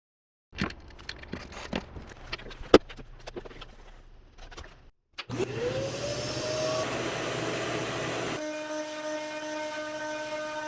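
Scattered clicks and knocks, then about five seconds in a vacuum motor spins up with a quickly rising whine and runs steady. A little after eight seconds the sound changes to a steadier, more tonal whine.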